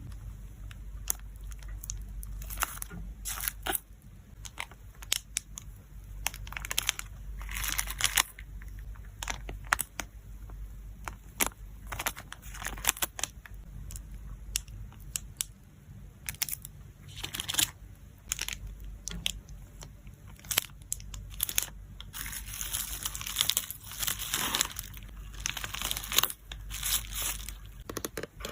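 Plastic packaging crinkling and tearing while photocards are packed by hand, with many sharp clicks and taps and short rustles. A longer stretch of dense crinkling comes near the end.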